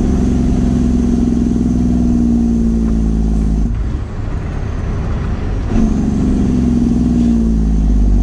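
Truck engine running on the road, its note slowly falling in pitch as the revs drop. About four seconds in the engine note cuts out and the sound goes quieter for about two seconds, as in a gear change, then it comes back in at higher revs and slowly drops again.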